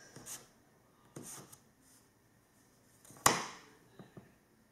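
Light knocks and scrapes of a plastic cutting tool on a wooden worktop as white sugarpaste is trimmed, with one sharp knock a little over three seconds in.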